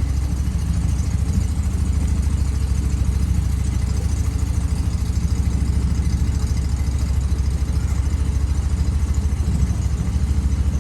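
An engine running steadily with a fast, even pulsing throughout.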